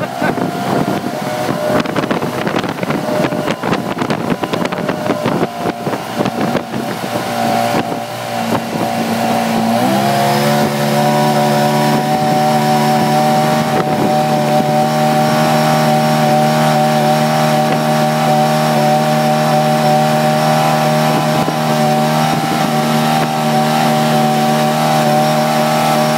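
Jet boat running at speed, with water and wind noise; about ten seconds in, the engine note rises and then holds a steady drone.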